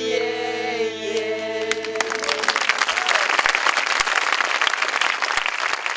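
Several singers holding the last chord of a song, then audience applause that breaks out about two seconds in and carries on.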